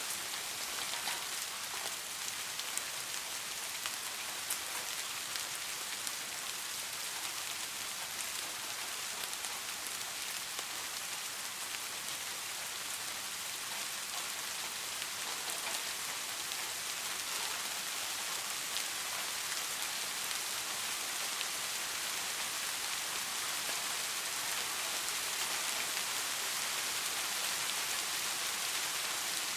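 Steady rainfall, an even hiss with scattered individual drops pattering on a surface.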